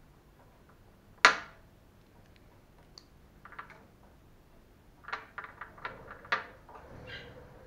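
Small plastic and metal RC ball-joint parts being worked by hand: one sharp click about a second in, the loudest sound, then scattered clusters of light clicks and a short scrape near the end.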